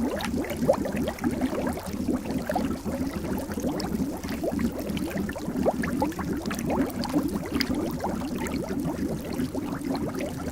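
Water bubbling steadily: a dense, continuous stream of bubbles, each a quick rising blip, many overlapping every second.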